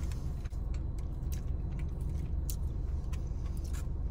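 Eating sounds: small wet chewing clicks and a plastic fork working in a foam takeout box, over a steady low hum inside a car.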